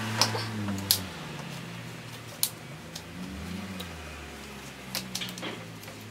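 Sharp clicks and taps of hand tools and fittings as a C-clip is worked off a car's charge pipe, the loudest about a second in, over a low steady hum.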